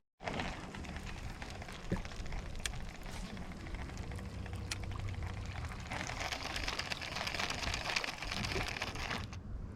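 Rain falling steadily, with a few sharp drop-like taps. From about six seconds in the hiss grows stronger until it stops abruptly near the end.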